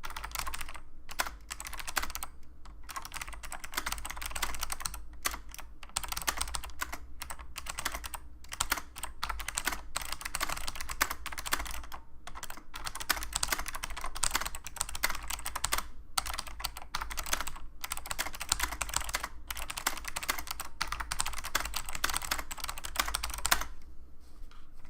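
Continuous fast typing on a Monterey mTek K108 keyboard with SMK Monterey Blue switches: a dense stream of key clicks that stops about a second before the end.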